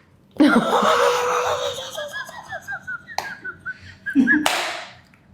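A person laughing, a long run of short, jumpy giggles, with a sharp click about three seconds in and a loud breathy burst just after four seconds.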